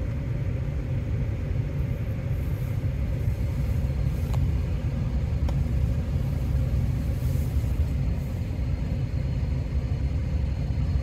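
Pickup truck idling: a steady low rumble heard inside the cab, with two faint clicks near the middle.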